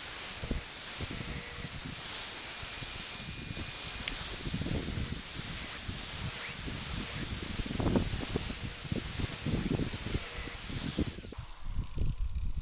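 Angle grinder with an abrasive grinding disc sharpening the cutters of a steel chainsaw chain: a steady grinding hiss with irregular low thumps. About eleven seconds in it is switched off and the motor's whine falls away as it spins down.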